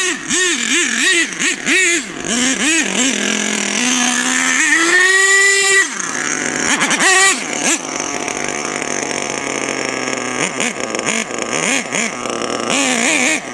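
Small nitro engine of an HPI Savage X 4.6 RC monster truck, revving in quick up-and-down throttle blips, then climbing to a high, held rev about four to six seconds in. It drops off abruptly and runs on steadier and lower, with small wobbles in pitch.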